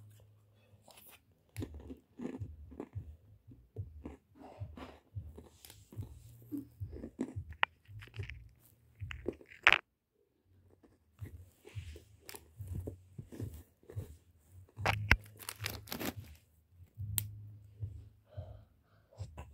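Irregular crunching and crackling close to the microphone, with low rumbling stretches. The sound cuts out for about a second near the middle.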